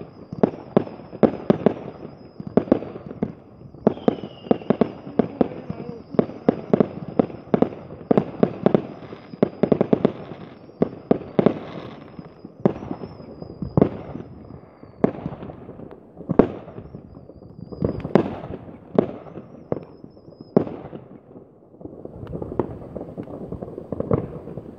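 New Year's fireworks going off in rapid succession: many sharp bangs and cracks, a few seconds apart at most, with a thin high whistle running through most of it. The bangs thin out near the end.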